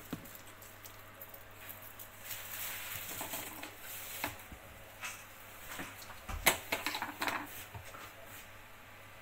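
Kitchen handling noises: scattered clicks and light knocks of cookware and the phone holder, the loudest knock about six and a half seconds in, over a faint crackle.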